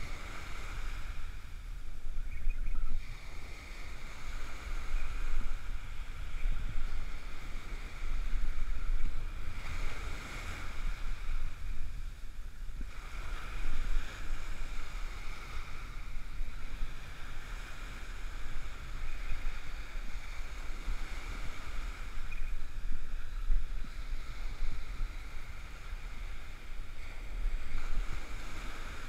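Ocean surf breaking and washing up a sand beach, swelling and fading every few seconds, with wind buffeting the microphone as a steady low rumble.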